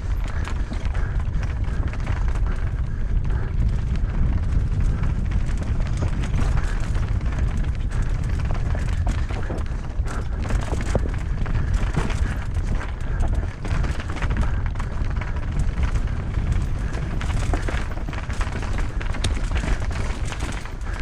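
Knolly Fugitive LT mountain bike descending rough singletrack at speed: a constant low wind rumble on the microphone with frequent rattles, clicks and knocks from the bike and tyres over rocks and roots.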